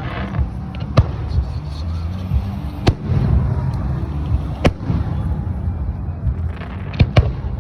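Fireworks going off: separate sharp bangs about a second in, near three seconds and near five seconds, then two in quick succession near the end, over a constant low rumble.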